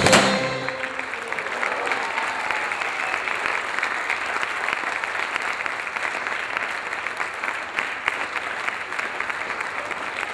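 Show music ends on a loud final hit that rings out for about a second, then an audience claps steadily.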